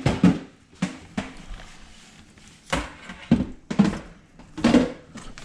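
Kitchen handling noises as battered fish pieces are worked: about seven short knocks and rustles, in a cluster at the start and again in the second half.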